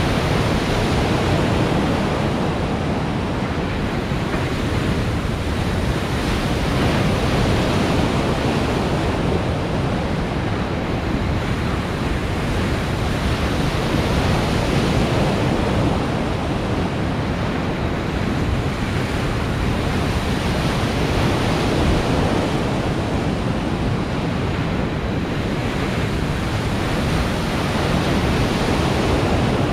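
Steady, loud rush of breaking water from an artificial surf pool's waves, swelling and easing a little, with wind buffeting the microphone.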